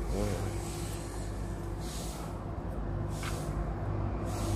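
A steady low motor hum, with three short hisses about a second apart in the second half.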